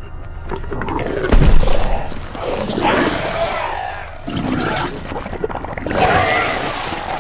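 Skull Crawler film-monster sound effect: a continuous run of roars and growls, loudest with a deep burst about a second and a half in.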